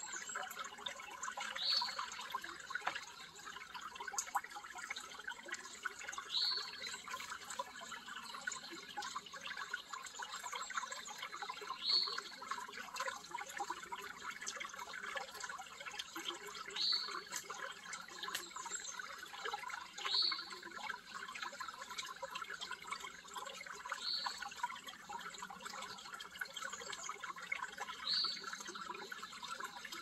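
River water flowing with a steady rushing sound. A bird gives a short, high call seven times, about every four to five seconds.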